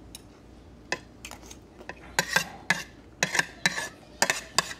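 Metal spoon and fork clinking and scraping against a ceramic plate: scattered sharp clicks, a few in the first two seconds and then a quick run of them in the second half.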